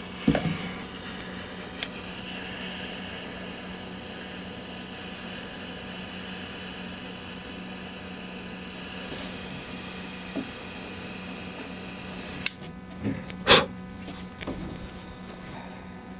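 Small handheld gas torch hissing steadily as its flame shrinks heat-shrink tubing over battery cable connections. The hiss cuts off with a click about twelve seconds in, followed by a few knocks from handling.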